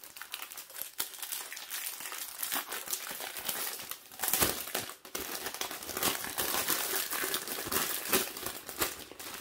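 Plastic packaging being crinkled and pulled off by hand during unwrapping: a steady run of crackles and sharp ticks, with a louder crinkle about four and a half seconds in.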